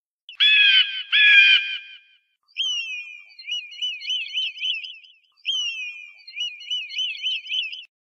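Bald eagle calling: two loud, harsh, falling cries, followed by two long runs of rapid, high-pitched chittering notes.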